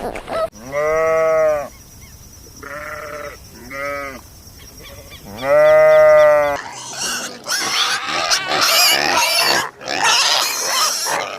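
Farm animal calls: three drawn-out, arching calls, the middle one broken in two, then from about six and a half seconds in a harsher, noisier run of rapid calls.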